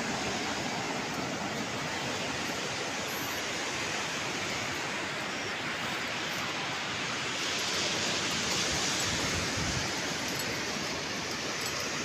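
Steady rushing of sea surf, swelling a little about eight seconds in.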